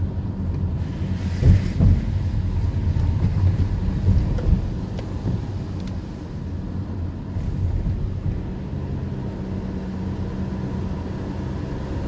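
Car cabin noise while driving on a wet road: a steady low hum from the engine and tyres, with a couple of short thumps about a second and a half in and again around four seconds.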